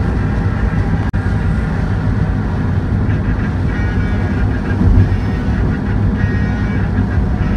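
Steady low rumble of a car driving on a rain-soaked road, heard from inside the cabin: road and tyre noise on wet pavement along with the engine. It drops out for an instant about a second in.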